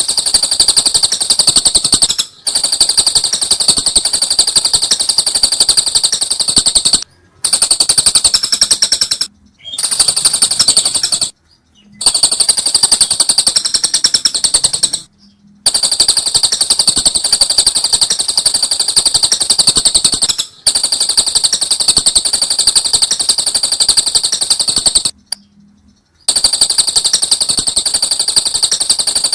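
Lovebird ngekek: a long, rapid, high-pitched chattering trill delivered in bouts of a few seconds each, broken by short pauses of about half a second or less, around eight bouts in all.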